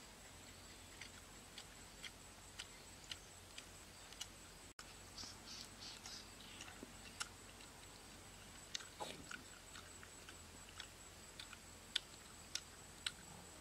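Faint chewing and lip-smacking of someone eating cooked eel: a scatter of small, sharp mouth clicks, about two a second at first and then in bunches, over a faint steady hiss with a thin high tone.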